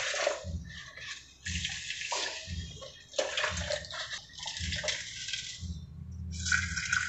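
Water poured from a plastic jug through a funnel into a dishwasher's salt reservoir, in several short pours of splashing and trickling, then dishwasher salt tipped in from a tub near the end. This fills the water-softener reservoir before first use.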